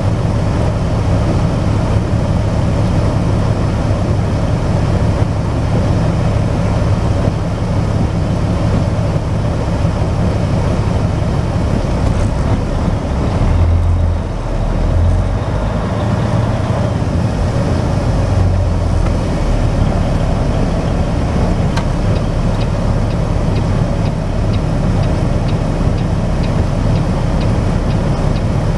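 A semi truck's diesel engine running, heard inside the cab as a steady low drone with road and cab noise over it. Around the middle the engine note swells in uneven bursts as the truck pulls away. Light regular ticking comes in near the end.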